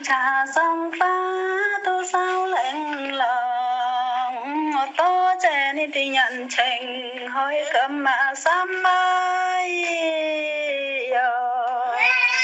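A single voice singing a slow melody with no accompaniment, holding long, wavering notes between short phrase breaks; the longest note is held from about nine to eleven seconds in.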